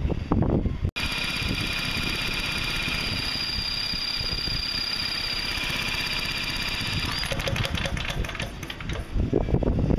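Cordless drill whining steadily as it spins a Briggs & Stratton overhead-valve mower engine over by the flywheel nut, cranking it to test the newly fitted ignition module for spark. About seven seconds in the whine cuts off, and a couple of seconds of rapid ticking follow.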